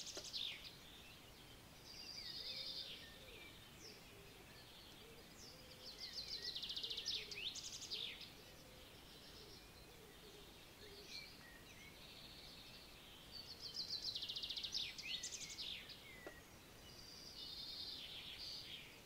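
A songbird singing short trilled phrases of rapid repeated notes, four of them a few seconds apart, over faint outdoor background noise.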